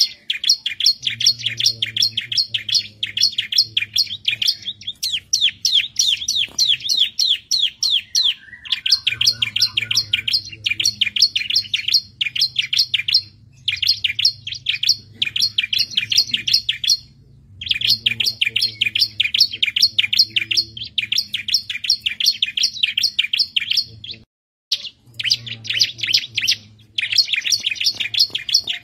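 Bar-winged prinia (ciblek) singing: long runs of rapid, high chirping notes, in phrases of several seconds broken by short pauses.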